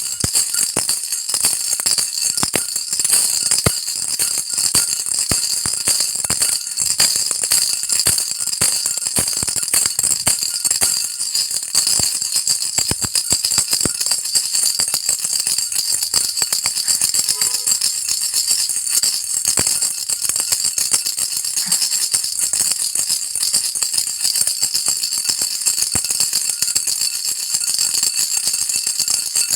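Baby rattle shaken without a break: a dense, steady, bright rattling.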